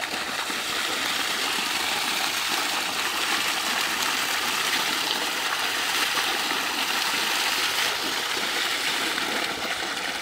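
Steady gush of water pouring from a PVC pipe outlet and splashing over raw mutton legs as they are rinsed clean under it.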